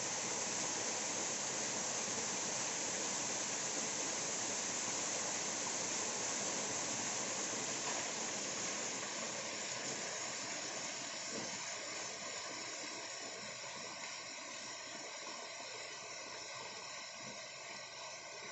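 Water cascading over rocks: a steady rushing that grows gradually fainter over the second half.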